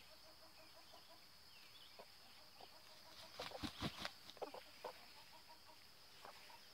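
Chickens clucking faintly, with a few short clucks bunched together a little past the middle.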